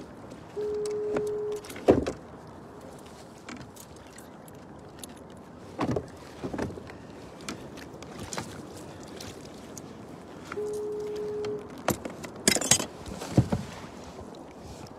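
Two identical steady electronic beeps, each about a second long and about ten seconds apart, between sharp knocks and clatter of gear being handled in a kayak; the loudest knocks come about two seconds in and near the end.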